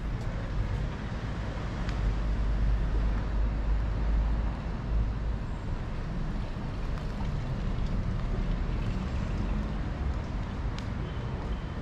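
Outdoor street ambience with a steady low rumble, as of traffic, and a few faint ticks.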